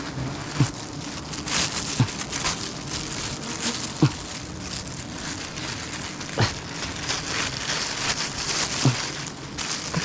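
A dense, hissing hum from a mass of wild honeybees swarming around their open comb. Every couple of seconds a single bee buzzes close past, heard as a short drone falling in pitch.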